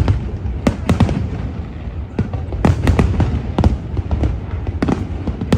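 A fireworks display: rapid, irregular bangs of aerial shells bursting, several a second, over a constant low rumble.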